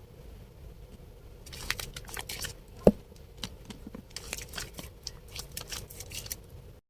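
Wet bar of Dettol soap being lathered: a run of crisp crackles and clicks starting about a second and a half in, with one louder thump near three seconds.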